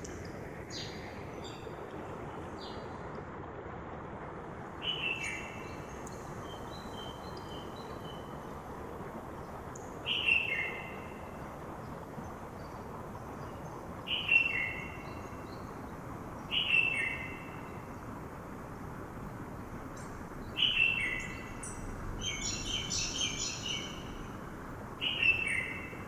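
Steady rushing of a mountain river, with a bird repeating a short downward-sliding call every few seconds, six times in all. Higher twittering from other birds joins in about two-thirds of the way through.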